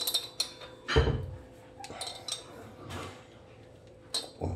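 Light metallic clicks and knocks of a replacement spindle being fitted by hand into a wall-mounted kitchen tap, with a heavier knock about a second in and a sharp click near the end.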